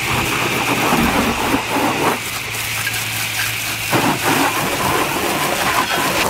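Garden hose spray nozzle jetting water onto a car's paint, wheel and the wet pavement: a steady, loud hiss of spray.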